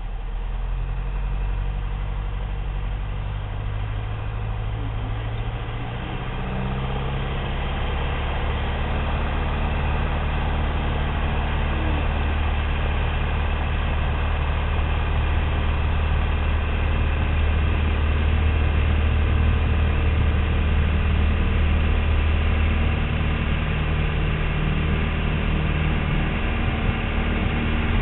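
Piper Cherokee's piston engine and propeller running, rising in pitch and loudness about six to eight seconds in as power comes up, then held steady at higher power.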